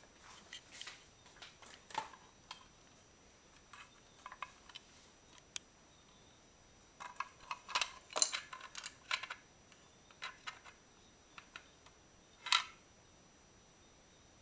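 Irregular light clicks and taps, a cluster of them about halfway through and a sharper click near the end, with no steady motor hum.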